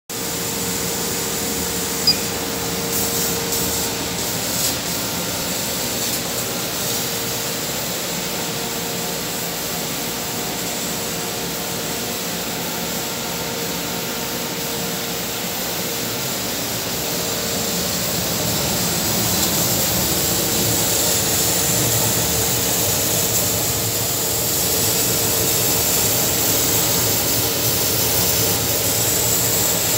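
130 W CO2 laser cutting and engraving machine running with a steady whir, a short click about two seconds in, growing a little louder in the second half.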